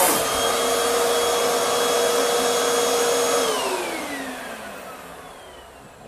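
Hoover WindTunnel 3 upright vacuum running with a steady motor whine, then switched off about three and a half seconds in, its whine falling in pitch and fading as the motor winds down.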